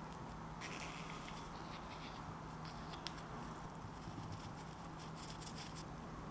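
Faint scattered clicks and light scrapes of a spoon and gloved hands against a ceramic ramekin as cream is spooned onto a small baked cake and chocolate chips are added, over a steady low hum.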